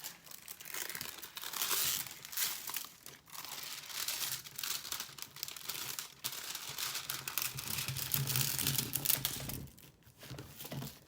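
Plastic film covering a diamond painting canvas crinkling and rustling as it is handled, a continuous run of irregular crackles.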